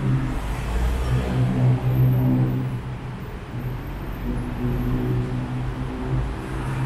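City road traffic: a vehicle engine runs with a steady low hum that swells to its loudest about two seconds in and then eases off.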